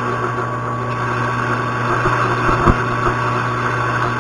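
Metal lathe running steadily during a grooving cut, a constant motor hum with a steady whine, and one short knock about two and a half seconds in.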